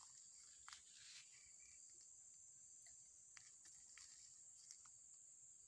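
Faint, steady, high-pitched chorus of insects, with a few soft ticks scattered through.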